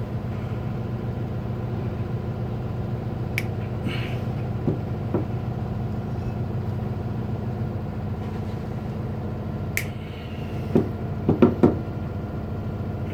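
Two sharp snips of wire cutters trimming the pump's lead wires, about three seconds in and again near ten seconds, then a quick cluster of knocks as the wires are handled at the pump's wiring box. All of it sits over a steady low mechanical hum.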